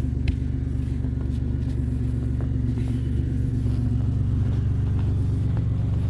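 Car engine idling steadily, a low even hum, with a few faint clicks over it.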